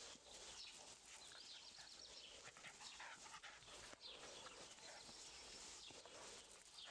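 Faint sounds of a tricolour rough collie puppy tugging and chewing at a plush toy: small scattered dog noises over a soft rustle.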